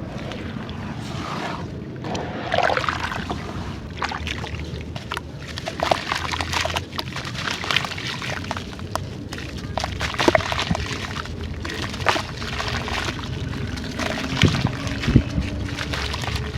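Grainy sand-textured clay crumbling and being dipped in water: irregular gritty crackles over sloshing and trickling water.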